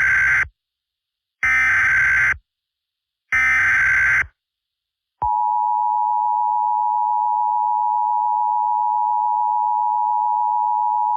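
Emergency Alert System SAME header: the end of one screeching data burst and two more, each about a second long and a second apart. About five seconds in, the steady two-tone EAS attention signal starts and holds, warning that an alert message follows.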